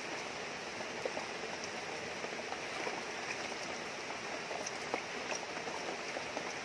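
Shallow rocky river rushing steadily, with scattered small splashes and drips in the water.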